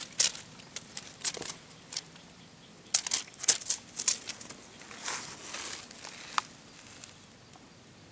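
A cat wand toy with fabric wings fluttering and rustling as it is swung and jerked about: a run of short, sharp rustles that stop about six and a half seconds in.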